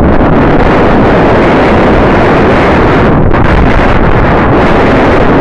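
Strong wind buffeting the microphone: a loud, steady rushing noise with no break.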